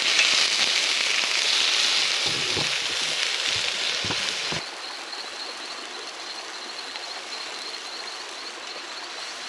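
Food frying in hot oil with a steady sizzle and a few low knocks. About halfway through it cuts off suddenly to a quieter steady rush of flowing water, with a faint high steady tone over it.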